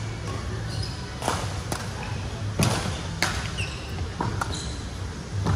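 Badminton rally: sharp racket strikes on the shuttlecock about a second apart, with a few short squeaks of shoes on the court floor. A steady low hum runs underneath, in a large echoing hall.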